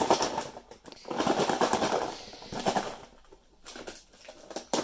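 Pieces of fried popcorn chicken clattering inside a closed plastic food container as it is shaken to coat them in seasoning powder: a fast rattle that stops about two and a half seconds in. A few quieter clicks of plastic follow as the container is handled.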